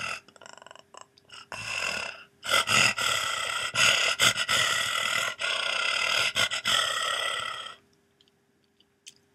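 A woman imitating a lion's roar with her voice: a short growl about a second and a half in, then one long, noisy roar of about five seconds with a few brief breaks, which stops near the end.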